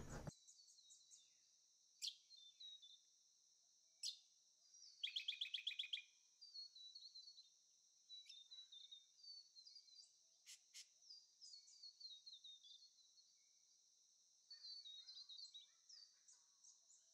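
Faint birdsong: small birds chirping and twittering in short high notes, with a quick rapid trill about five seconds in.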